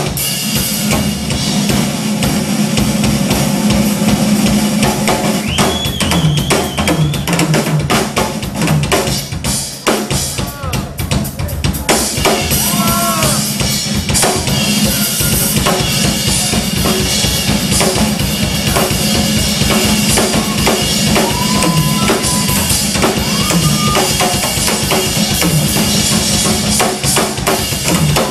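A drum kit played fast and hard: dense, rapid strokes on snare, toms and bass drum under ringing cymbals. A held low note and a few short sliding pitched tones sound along with it, and the playing briefly drops in level about ten seconds in.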